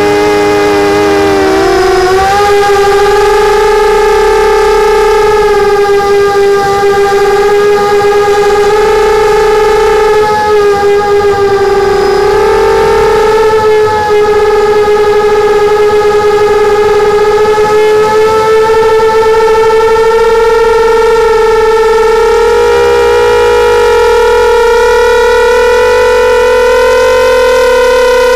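Brushless motors and propellers of a 250-size FPV racing quadcopter buzzing loudly, heard through its onboard camera's microphone. The pitch dips and rises with throttle near the start and again about twelve seconds in, then climbs slowly near the end as the quad gains height.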